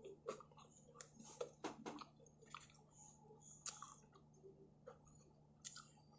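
Faint, irregular crunching of someone chewing a mouthful of crisp-crusted ham and pineapple pizza. The crunches come thickest in the first two seconds, then thin out.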